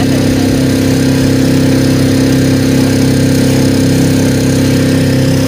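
Small boat's outboard motor running at a steady speed, a constant droning hum.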